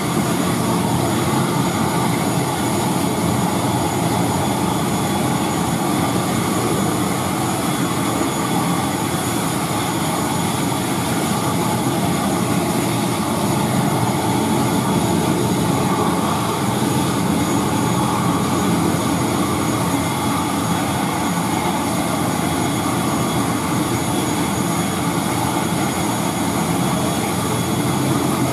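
ATR 72 turboprop engine running steadily on the ground: an even, unbroken engine noise with a thin high whine on top.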